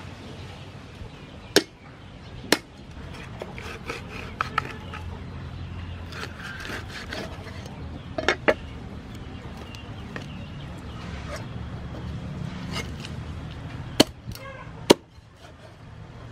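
Meat cleaver chopping raw chicken on a round wooden chopping board: scattered, irregular knocks of the blade striking the wood, about ten in all, with two of the sharpest near the end.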